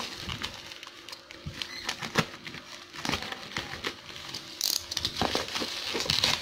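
Plastic parcel wrapping and bubble wrap crinkling and rustling as it is cut and pulled open by hand with a cutter knife, with scattered clicks and a couple of short scraping rasps.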